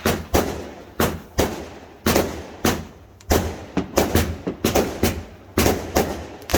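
Fireworks exploding in quick succession: sharp bangs about two a second, each trailing off in echo.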